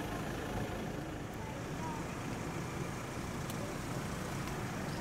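Steady low rumble of an idling vehicle engine, with a few faint short chirps now and then.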